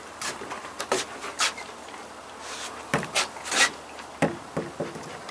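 A cotton T-shirt being unfolded and handled: several short fabric rustles and rubs, spread out and loudest a little past halfway.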